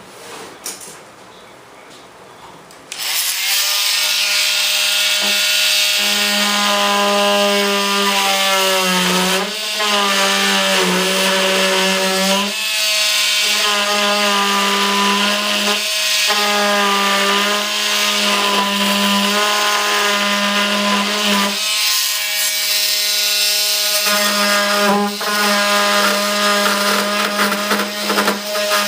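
A battery-powered hand power tool switches on about three seconds in and runs at high speed with a high hiss. Its motor pitch sags each time it bears on the work, and it briefly eases off several times.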